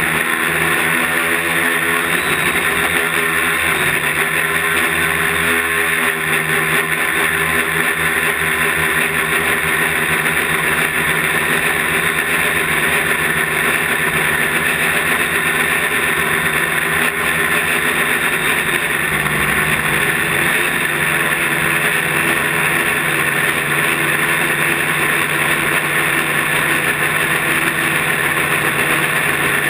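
Quadcopter's electric motors and propellers buzzing steadily in flight, recorded close up by the onboard camera. The pitch wavers over the first several seconds and shifts again about two-thirds of the way through as the craft manoeuvres.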